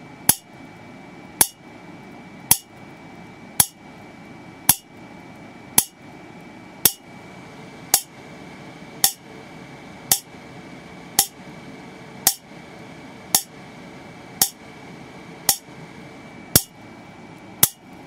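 Water-drop-triggered high-voltage spark gap, fed by a flyback transformer with a 4 nanofarad capacitor bank, firing a sharp snapping pop about once a second as each falling water drop bridges the electrodes. Each spark carries a lot of energy but goes out quickly. A faint steady high whine runs underneath.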